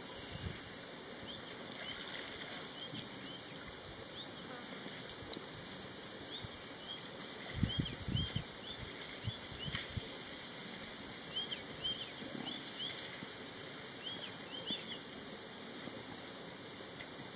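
Outdoor bush ambience at a waterhole: a steady background with small birds giving many short, repeated chirps, and a brief low sound about eight seconds in.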